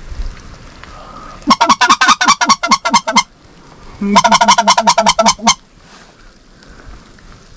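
Goose honking in two rapid, evenly paced runs of short loud notes, about a dozen each, the first starting about a second and a half in and the second about four seconds in.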